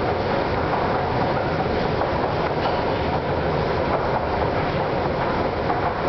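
An inclined Movator moving walkway running, heard from its moving handrail: a steady mechanical rumble with faint, irregular clicks.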